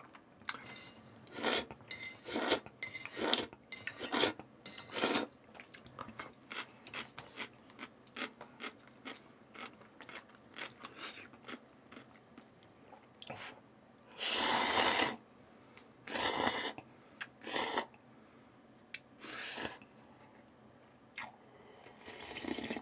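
Close-miked eating sounds: a person chewing and slurping instant cup noodles in short bursts with pauses between them. A longer slurp comes about two-thirds of the way through, and near the end there are drinking sounds as the broth is sipped from the cup.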